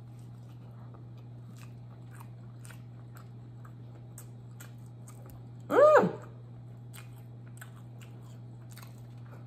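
Close-up chewing of a beef samosa, with small crisp crunches and mouth clicks from the fried pastry after a bite. About six seconds in there is one brief vocal sound from the eater that rises and falls in pitch, the loudest moment.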